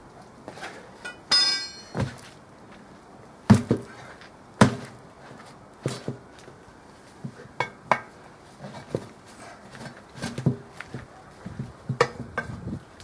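Irregular knocks and thuds of a tyre being changed by hand on a steel Series Land Rover wheel: boots pressing down on the tyre and a steel tyre lever knocking against the rim. About a second in, a metal clank rings briefly.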